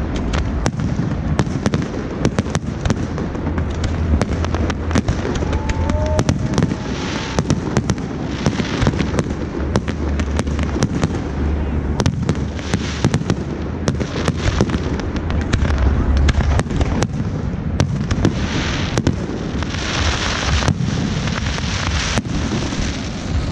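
Fireworks going off: many sharp bangs and crackles in quick succession over a low rumble.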